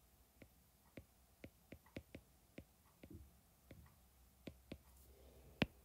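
Faint, irregular clicks of a stylus tapping and writing on a tablet's glass screen, with one sharper tap a little before the end.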